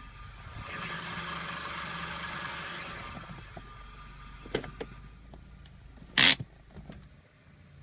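Car idling with a hissing whirr for about two seconds, the extraneous noise heard when a gear is engaged with the brake pedal pressed. A few clicks follow, then one sharp knock about six seconds in.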